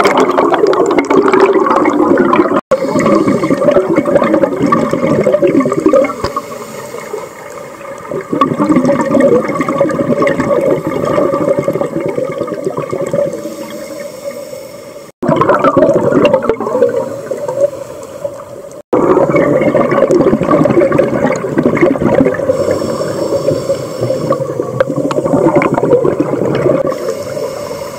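Dense underwater bubbling and gurgling of air bubbles in the water, a continuous churning that dips quieter midway and drops out abruptly three times for an instant.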